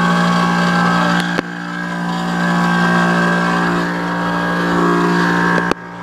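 Air conditioner compressor running with a steady electrical hum while the condenser fan motor, whose capacitor is far out of spec, has failed to start. A knock about a second and a half in, then the hum drops off sharply near the end amid a few clicks.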